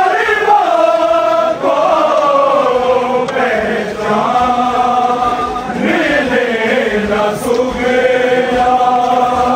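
Voices chanting a noha, a Shia lament for Muharram, in long held notes that bend and slide from one pitch to the next.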